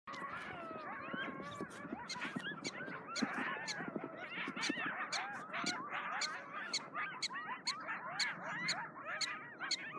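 A pack of coyotes howling and yipping together, many overlapping rising and falling calls, which the filmer puts down either to a passing police siren or to a fresh kill. Short sharp chirps repeat two or three times a second through it: prairie dogs giving alarm calls at the coyotes.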